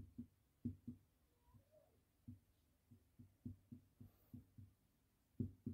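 Marker pen writing on a whiteboard: faint, irregular low thuds as the tip strikes and presses against the board, around fifteen in a few seconds.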